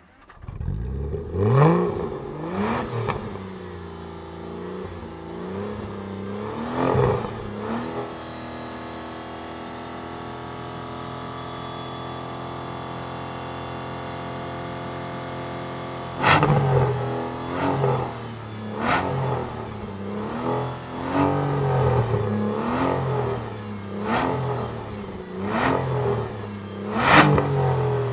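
Aston Martin engine revved in short throttle blips, a few in the first eight seconds. It then idles steadily for about eight seconds, and finally revs in a quick series of about ten blips, the last the loudest.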